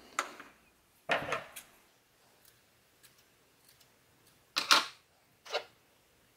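Four short handling sounds on a tabletop: the plastic bearing block and tools being set down and picked up, and scissors snipping a cotton swab to trim it. The loudest comes a little past halfway.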